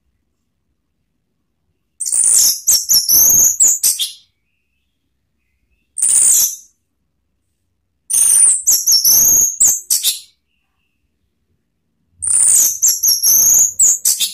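Orange-headed thrush (anis merah) singing: four loud phrases of high, rapid whistled notes, the second one short, separated by silence of about two seconds.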